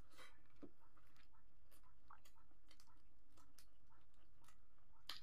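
Soft chewing with scattered faint mouth clicks and smacks from a person eating, over a low steady background hum.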